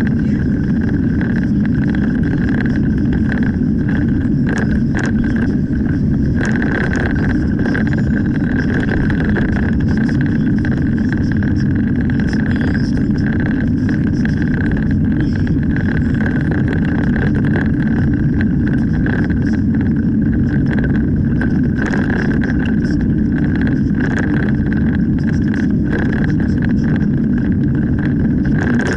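A car driving on an open road, heard from inside the cabin: steady tyre and engine rumble with a constant high hum over it.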